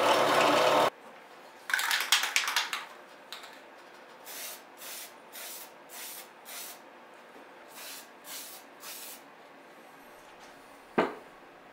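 A scroll saw cutting wood stops suddenly about a second in. Then an aerosol spray-paint can hisses, one longer spray followed by about ten short squirts, painting carriage bolts black.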